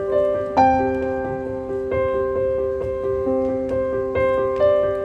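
Background piano music: single notes struck about every half second over held lower notes.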